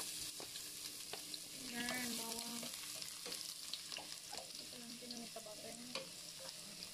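Minced garlic sizzling in hot olive oil in a stainless steel pan, with a steady frying hiss. A wooden spatula stirring it gives scattered clicks and scrapes against the pan.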